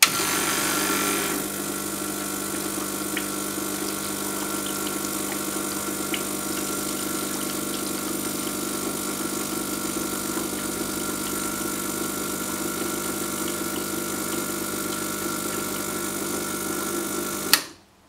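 Gaggia Selector Deluxe espresso machine's pump running steadily, pushing water through the group head and degreasing-tablet-treated basket and pouring it into a glass, flushing out the degreaser. It stops with a click near the end.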